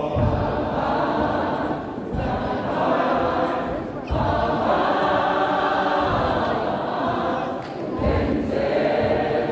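Church choir of men's and women's voices singing an isiZulu hymn in harmony, in phrases of a few seconds, with a low thump as several phrases begin.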